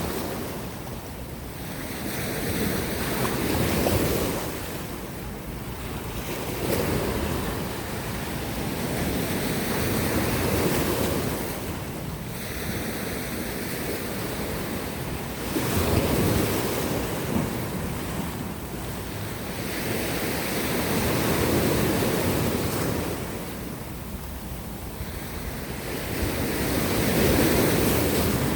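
Mediterranean sea waves breaking and washing against coastal rocks. The surf comes in repeated surges about every four to six seconds, each rising and falling away, under a steady hiss of wind.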